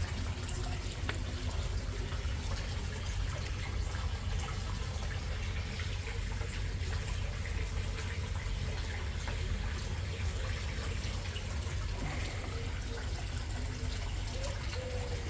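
Water trickling and splashing steadily into a garden koi pond, over a steady low rumble.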